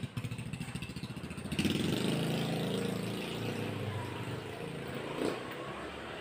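Small motorcycle engine running as the bike rides off down the alley. The sound swells about a second and a half in, then fades gradually.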